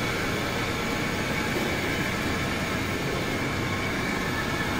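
Roll heat transfer machine running with a steady mechanical hum and rumble, a faint high tone held over it.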